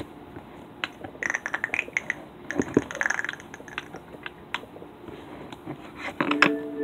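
Scattered sharp clicks and short bursts of light clattering taps. Near the end, a steady held tone begins.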